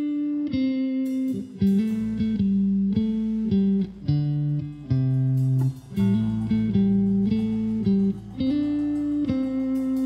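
A jazz fusion band playing live. Held guitar notes move over a changing bass line, with drum and hand-percussion hits scattered through it.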